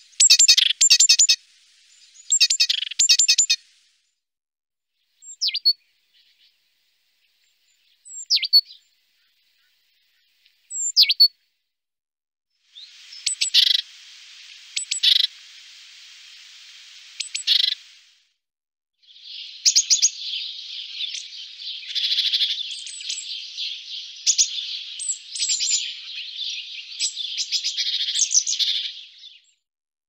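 Great tit calling: two quick bursts of rapid chirping notes, then three single short falling notes a few seconds apart, then long stretches of dense chattering.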